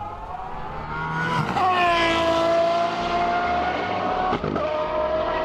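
Aston Martin Valkyrie's naturally aspirated 6.5-litre V12 screaming at very high revs. The note climbs over the first second and a half, breaks and drops, then holds a high, nearly steady pitch, with a brief break about four and a half seconds in.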